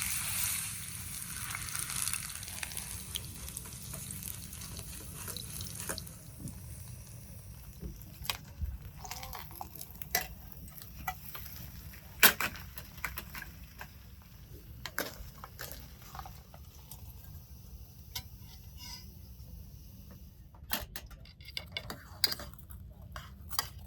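Camp cooking: a sizzling hiss for the first several seconds, then scattered clinks and taps of pots and utensils, one sharper clink about halfway through.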